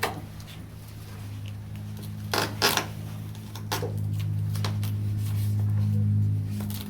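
A few sharp clicks and rustles of packaging being handled and pulled off during an unboxing, over a steady low hum that swells in the second half.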